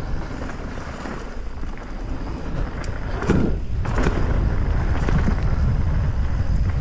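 Mountain bike rolling down a dirt flow trail: wind buffeting the microphone over tyre noise, with rattles and clicks from the bike on bumps. A heavier jolt comes about three seconds in, and the riding is louder after it.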